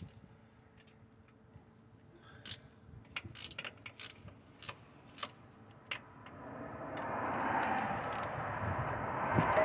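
Scattered sharp metallic clicks of a ratchet wrench working the starter's lower mounting bolt. After about two-thirds of the way in, a steady rushing noise rises and becomes the loudest sound.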